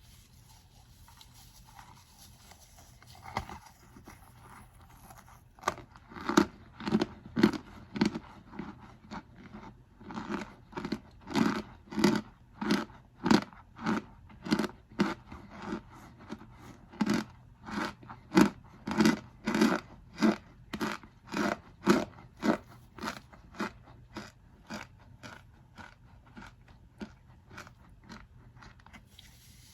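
Packed cornstarch mixed with baking powder being crunched in a box: a steady run of short crunches, about two a second, starting a few seconds in and growing softer near the end.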